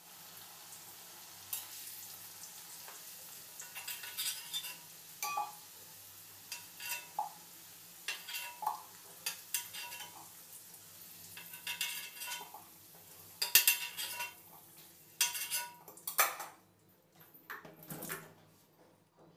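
A metal spoon scraping and clinking against a black iron kadai as fried potato pieces are scooped out of hot oil, over a steady sizzle of frying. The clinks come in irregular strokes, thickest a little past the middle, and the sizzle fades near the end.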